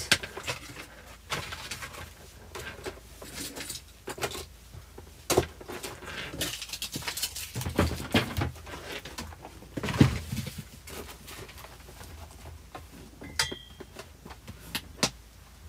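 Fabric rustling and irregular knocks of handling close to a phone's microphone, the loudest about ten seconds in. A brief high tone sounds near the end.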